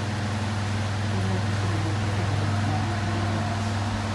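Electric standing fans running: a steady low hum over an even rush of air.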